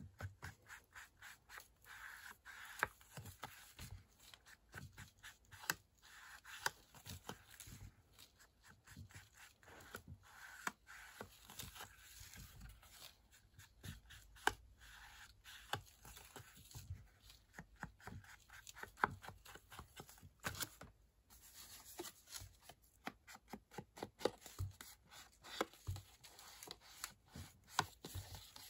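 Sponge dauber dabbing and rubbing ink onto the edges of embossed cardstock: an irregular run of soft taps, several a second, with brief scrubbing against the card.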